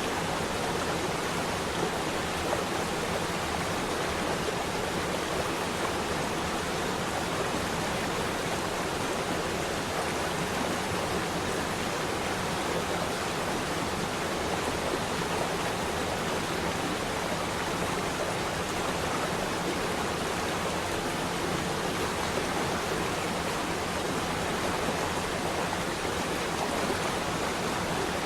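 Running water, a steady even rush that goes on without a break.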